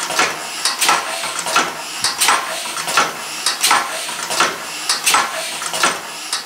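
Homemade twin-cylinder compressed-air engine running very slowly, around 45 RPM: a steady rhythm of sharp metallic clacks, about two or three a second, over a hiss of air.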